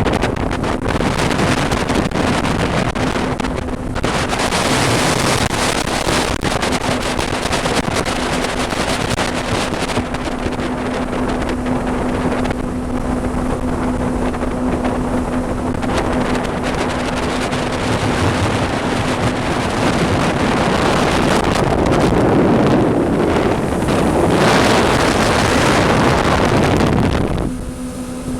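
Loud wind buffeting the microphone on a moving motorboat, gusting up and down, over the steady hum of the boat's engine. The wind grows louder in the last third, covering the engine hum, then drops off sharply near the end.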